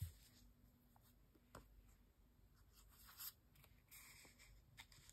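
Faint rustling and soft ticks of plastic photocard sleeves being handled and slid into a binder's clear pockets, with a few small scrapes and near silence between them.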